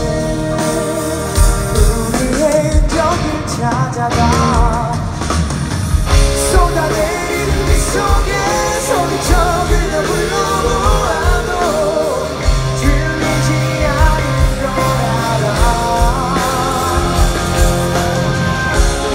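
Rock band playing live, recorded from the crowd: drums keeping a steady beat under bass and electric guitar, with singing over them.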